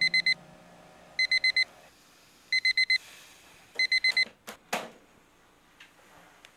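Digital alarm clock beeping in bursts of four quick, high beeps, a burst about every second and a quarter. The beeping stops after about four seconds as a hand slaps the clock, which gives two sharp knocks.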